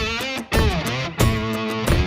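Background music: electric guitar-led rock with a steady drum beat.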